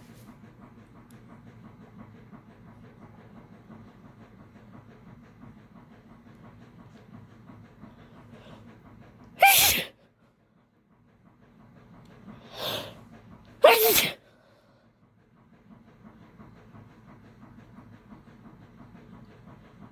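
A woman sneezing twice, about four and a half seconds apart, with a quieter sound just over a second before the second sneeze. They are allergy sneezes. A steady low background hum runs between them.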